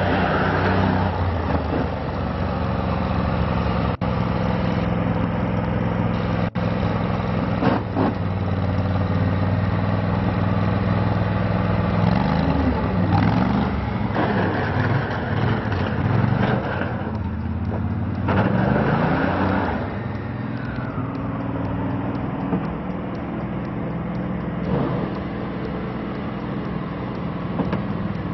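Max IV 6x6 amphibious ATV's Kohler Command 20 hp gas engine running as the machine drives about, its pitch rising and falling a couple of times as it speeds up and slows down.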